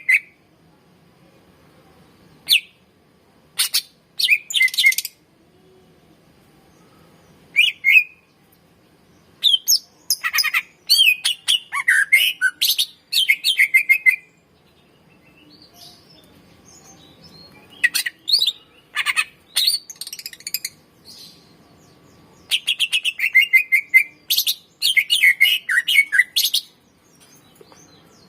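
Greater green leafbird (cucak ijo) singing: runs of quick, sharp notes and short whistles. A few short calls come first, then longer bursts lasting several seconds with brief pauses between them.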